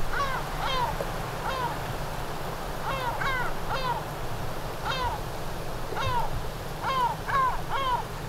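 Lesser black-backed gulls calling: about a dozen short calls, each falling in pitch, irregularly spaced and some coming in quick pairs.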